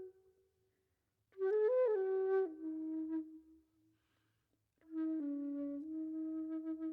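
Background music: a solo flute playing a slow melody of held, stepping notes in two short phrases, the first about a second in and the second near five seconds in, with silent pauses between them.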